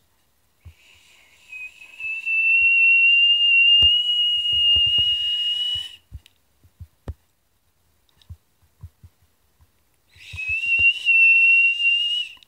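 Human lip whistle, made with the tongue against the upper lip and the lower lip in front of it: two long, steady, high whistles with a breathy hiss. The first lasts about five seconds and drifts slightly up in pitch; the second, near the end, lasts about two seconds. Quite loud and piercing.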